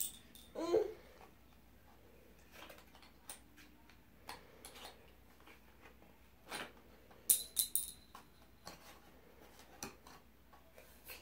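Scattered light clicks and clatters of wooden colored pencils being picked up off a tile floor and dropped into a cardboard pencil box, with a quick run of several clicks about seven to eight seconds in.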